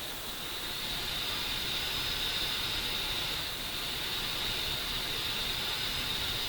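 A steady hiss with a high, whistle-like edge, building up over the first second and then holding level.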